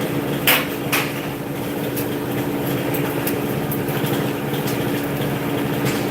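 A motor running with a steady hum, with two sharp knocks about half a second and a second in and a few lighter clicks later.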